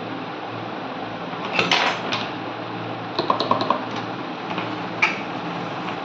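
Light handling of small hand tools: a short scratchy scrape about one and a half seconds in, then a few sharp little clicks, over a steady background hum.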